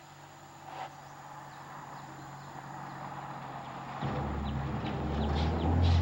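A low engine rumble sets in about four seconds in and grows steadily louder, as of a vehicle pulling up, with short high chirps over it.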